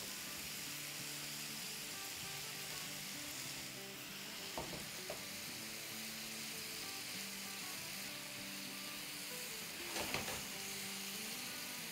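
Chicken pieces frying in oil and butter in a nonstick pan, a steady sizzle as they are turned over with a silicone spatula, with a few short taps and scrapes of the spatula against the pan about four to five seconds in and again near ten seconds.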